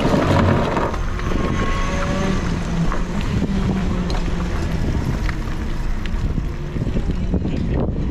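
Racing kart's engine running at low speed as the kart pulls away and rolls on, a steady putter, with wind buffeting the onboard microphone.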